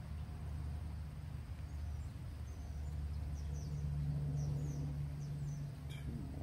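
Outdoor ambience: a steady low rumble with faint bird chirps, a handful of short high calls between about two and five and a half seconds in.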